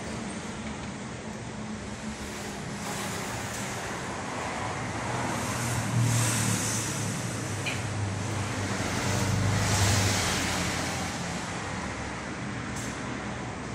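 Steady motor-vehicle traffic noise with a low engine hum that swells twice, about six seconds in and again around ten seconds in.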